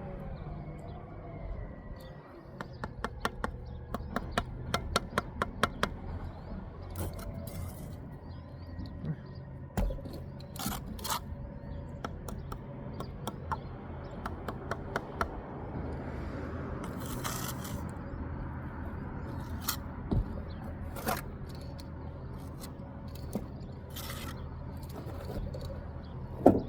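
Mortar work with a bricklayer's steel trowel on brick: scraping and spreading mortar, with runs of quick light taps as bricks are set in place and a louder knock near the end. A steady low hum runs underneath.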